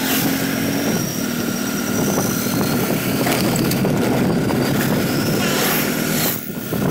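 Engine running steadily with wind and road noise, heard from a vehicle moving along a road, with a brief dip in loudness near the end.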